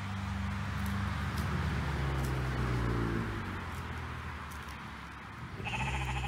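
A vehicle's low engine drone swells and fades over the first few seconds, then a sheep gives a short bleat near the end.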